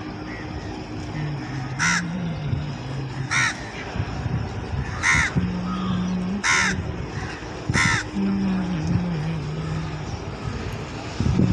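Crow cawing five times, about every one and a half seconds, with a low humming tone underneath that shifts in pitch.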